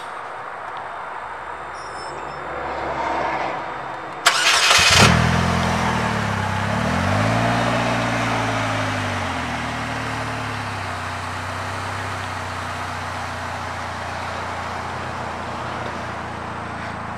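2018 Polaris Slingshot S's 2.4-litre four-cylinder engine cranked by the starter about four seconds in, catching within half a second. It revs up and down briefly, then settles to a steady idle.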